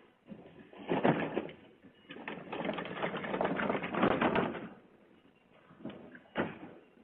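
Plastic wheeled garbage bin being tipped and rolled over pavement, clattering and scraping in two stretches, with two short knocks near the end as it is set down.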